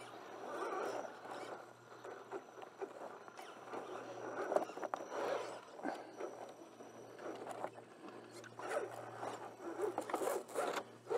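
Electric drivetrain of a stock RC4WD Trail Finder 2 scale rock crawler whirring in short, uneven bursts as it creeps up sandstone ledges, with its tires scraping and grinding on the rock.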